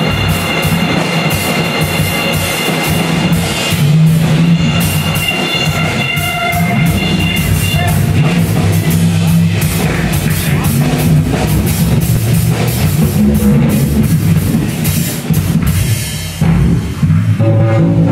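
A live band playing loud rock-style music: a drum kit with frequent snare and cymbal hits over guitar and bass. The sound thins out briefly near the end, then comes back at full strength.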